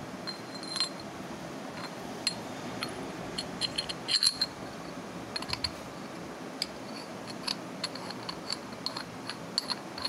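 Steel hydraulic fitting parts clinking and scraping together as they are reassembled by hand: a scattered run of light metallic clicks and ticks, loudest in a cluster about four seconds in.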